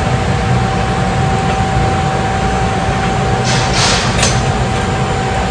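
Steady mechanical hum and rush of a repair shop's running machinery, with a constant whine. Three short hisses come about three and a half to four seconds in.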